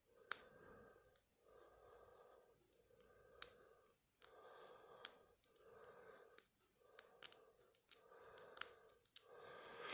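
Small sharp metallic clicks and ticks of a lock pick and tension tool working the pins inside a Federal padlock, coming at irregular moments. Under them runs a soft rushing sound that swells and fades about once a second.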